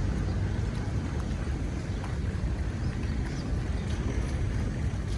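Steady low outdoor rumble of street background noise, with a few faint ticks.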